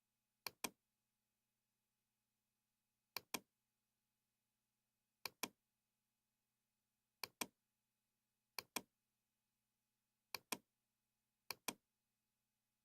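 Computer mouse button clicking seven times at irregular intervals of one to three seconds, each a quick pair of clicks, over a faint steady low hum.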